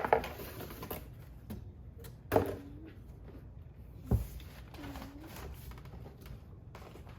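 Packing material being pulled from a bicycle box: a crinkling rustle right at the start and another at about two and a half seconds, then a dull thump at about four seconds.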